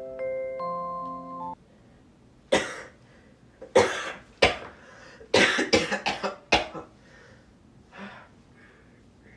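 A person coughing repeatedly: single coughs about a second apart, then a quick run of coughs, one more, and a faint last cough near the end. A short tune of mallet-like tones stops about a second and a half in, before the coughing starts.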